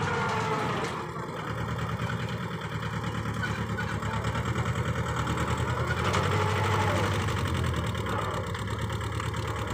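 Mini tractor engine running steadily with a fast, even beat while its front loader pushes into a dirt pile.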